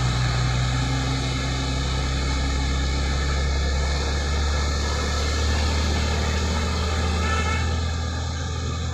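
Heavy container truck's diesel engine labouring up a steep climb in a low gear, a steady low drone. The truck appears to be struggling for power on the grade.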